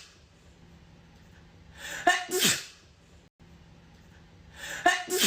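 A woman sneezing: a quick indrawn breath, then a loud two-part "ah-choo" about two seconds in. The identical sneeze comes again near the end, repeating as an edited loop, with a brief dropout to silence where the loop is spliced.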